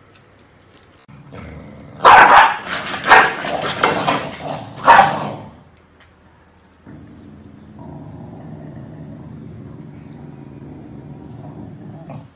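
Corgi barking: about four loud barks between two and five seconds in, then a low, steady growl from about seven seconds on.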